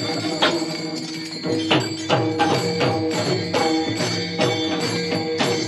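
Instrumental interlude of devotional abhang accompaniment. Bright metallic strikes, most likely the hand cymbals (taal), keep a steady beat of about three a second after a sparser start. Steady held notes sound underneath.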